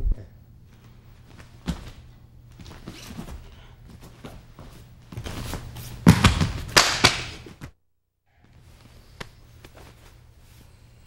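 Thuds and scuffling of bodies and feet on a training mat as a grappling technique is demonstrated, with a louder flurry of impacts about halfway through. A steady low hum from the old tape runs underneath, and the sound drops out completely for a moment just after the flurry.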